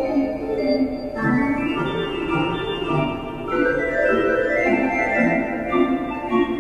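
Organ music: slow, held chords that change every second or two.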